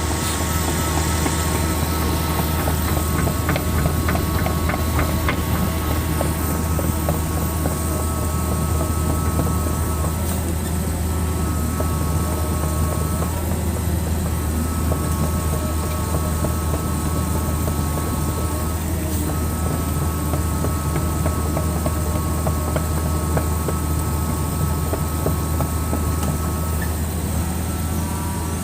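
Excavator's diesel engine running steadily under a constant low hum, with a steady higher whine over it and a run of rapid clicks a few seconds in.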